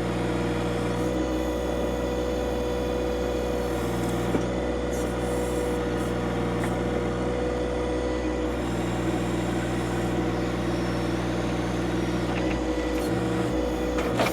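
John Deere 2025R compact tractor's three-cylinder diesel engine running steadily while the backhoe is worked.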